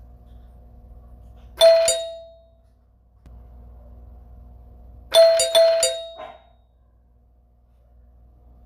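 Doorbell ringing: a double ding about one and a half seconds in, then a quicker run of four dings about five seconds in, each fading out, over a faint steady hum.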